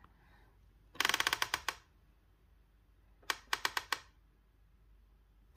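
Graef CM900 burr grinder's grind-setting collar being turned, clicking quickly through its detent steps in two short runs: a longer run about a second in, and a shorter one a couple of seconds later.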